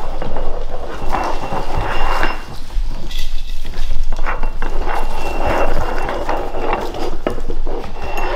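A litter of five-week-old Labrador puppies scrabbling about, claws clicking on a hardwood floor, with small glass food bowls clinking as they eat from them.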